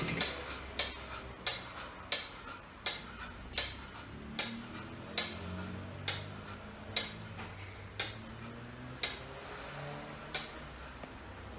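Milking machine pulsator ticking in a regular rhythm, about one click every three-quarters of a second, spreading a little toward one a second, just after the vacuum pump motor cuts off.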